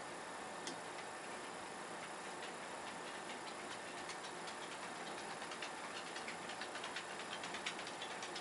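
Small, irregular clicks and ticks over a steady hiss, coming thicker in the second half, with one sharper tick near the end.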